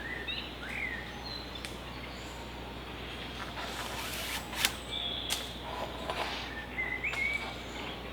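Woodland birds chirping with short rising calls, and two sharp snaps about halfway through.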